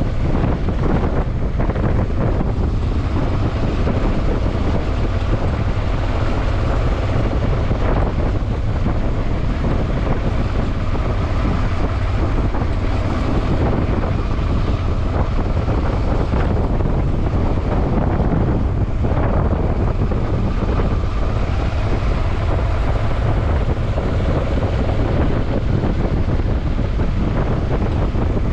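Wind buffeting the microphone over a steady low rumble, unbroken throughout.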